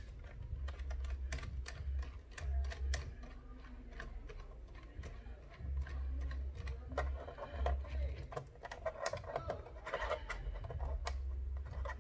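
Small Phillips screwdriver working the screws out of a plastic laptop bottom case: many light, irregular clicks and ticks of the bit on the screw heads and plastic. A low hum comes and goes in stretches.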